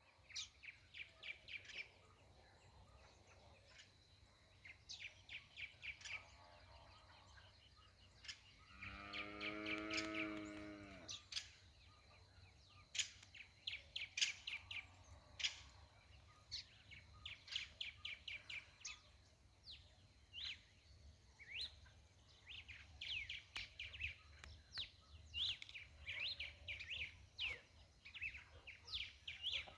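Small birds chirping in quick repeated runs throughout, with a single cow moo of about two seconds roughly nine seconds in.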